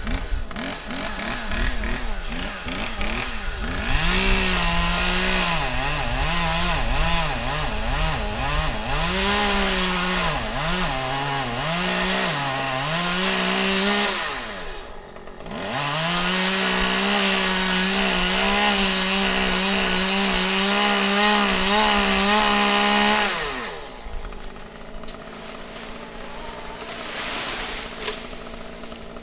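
Two-stroke chainsaw revving up and down in repeated bursts, then held at full throttle for several seconds while cutting wood, and dropping back to a low idle near the end.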